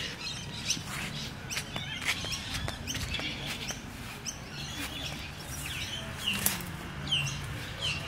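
Outdoor birds chirping: short, quick calls at intervals over a faint background hum.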